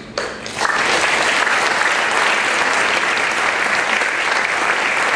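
Audience applauding, starting about half a second in and continuing steadily.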